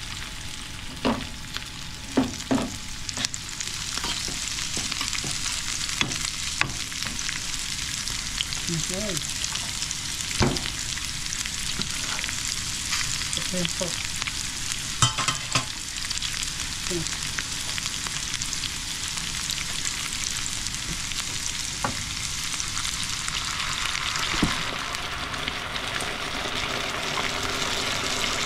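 Chopped onions, bell peppers, tomatoes and green onions sizzling steadily in a hot pan, with occasional sharp knocks against the pan. Near the end a liquid sauce is poured in and the sound fills out lower.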